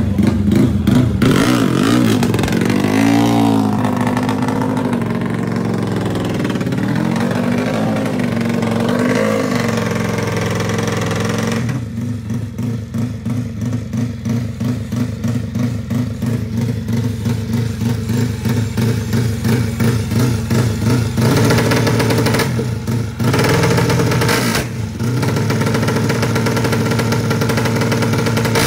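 Four-stroke drag-racing motorcycle engine running loud, its revs rising and falling over the first ten seconds. From about twelve seconds in it settles to an even, pulsing idle, then is revved higher again briefly after twenty seconds.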